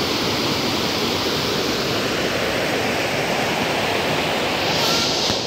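Water rushing steadily over a small concrete weir in a channel.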